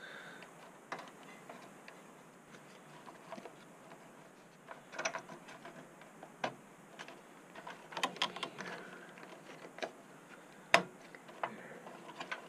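Hands handling ribbon cables and their plastic connectors inside an open metal computer case: faint scattered clicks and rustles, with a sharper click near the end.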